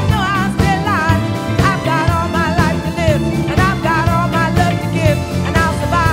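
Music: a rock song with a singing voice over a full band with a steady beat.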